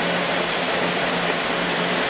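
Steady, loud rush of server-room cooling fans and air conditioning, with a constant low hum underneath.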